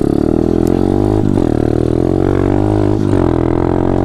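Taotao DB17 125cc pit bike's single-cylinder four-stroke engine running under throttle while riding, with brief dips in the engine note about a second in and again near three seconds.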